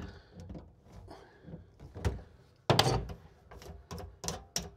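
Short knocks and clicks of pliers and plastic drain fittings as the top slip nut on a sink's plastic tailpiece is worked loose, with one louder knock about two and a half seconds in and a quick run of smaller ones after it.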